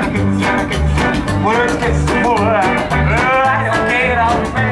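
Rockabilly band playing live: upright double bass walking in a quick steady beat under acoustic and hollow-body electric guitars and drums, with a bending melody line over the top.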